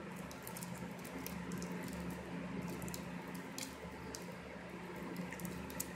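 Cellophane shrink-wrap on a trading-card deck crinkling under fingers picking at it: a scatter of small, irregular crackles over a faint, steady low hum.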